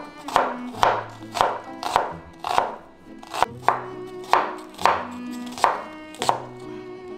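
Chef's knife chopping an onion on a wooden cutting board: sharp knocks of the blade hitting the board at an uneven pace, about one to two a second, with soft background music under them.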